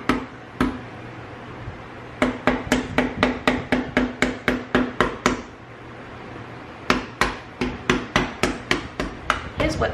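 Small hammer tapping a metal point into the thick shell of an ostrich egg to chip a hole. The taps are sharp and quick, about four a second, in two runs with a pause of about a second and a half between them.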